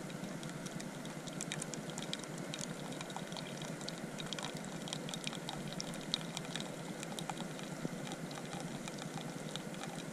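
Espresso maker brewing a double espresso into a metal camp mug: a steady hiss with many small, irregular crackles and spits as the coffee comes through.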